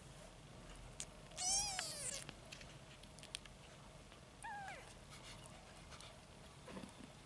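A young kitten mewing twice: a longer high mew about a second and a half in, then a shorter one falling in pitch about four and a half seconds in, with a few faint clicks between.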